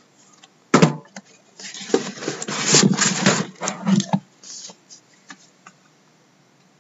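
A card tin scraping and rubbing against cardboard as it is slid out of its cardboard shipping case, with small clicks. A single knock comes about a second in, and the scraping fades out after about four seconds.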